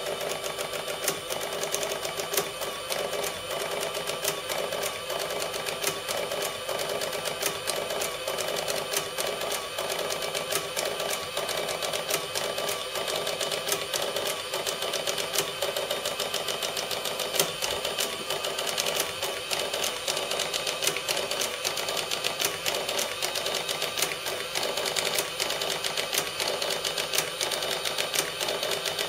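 Sharp XE-A102 cash register's built-in receipt printer printing the end-of-day Z report: a steady, rapid chatter of fine clicks that runs on without a pause.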